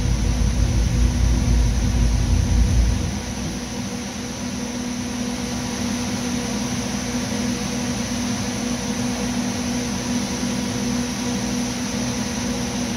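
Twin-turbo ProMod engine on a dyno, rumbling low just after a pull. The rumble drops away about three seconds in, leaving a steady hum and hiss.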